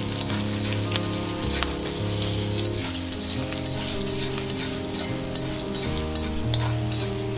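Mustard seeds, urad dal and chopped green chillies sizzling and crackling in hot coconut oil in a cast-iron kadai, a tempering being stirred with a metal slotted spatula. Background music with held low notes plays underneath.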